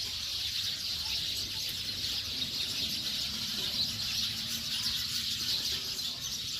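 Outdoor ambience: a steady, dense high-pitched chirping of birds, unbroken throughout.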